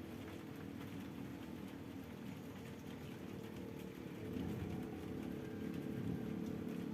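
A small engine running in the distance, a steady low hum that grows louder about four seconds in.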